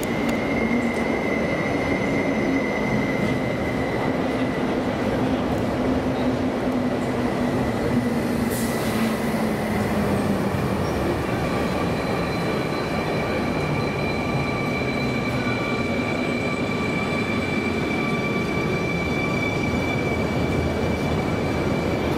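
Koleje Mazowieckie electric multiple unit running into an underground station platform. A steady rumble of wheels on rails runs under a low motor whine that falls in pitch over the first ten seconds as the train slows, with a high steady wheel squeal and a brief hiss about eight and a half seconds in.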